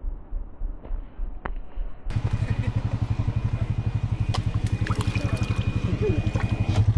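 ATV engine running with a steady throb while the machine sits stuck in a mud rut, with wet mud and water trickling and dripping around it. About two seconds in, the engine suddenly comes in louder with a faster beat and scattered sharp clicks.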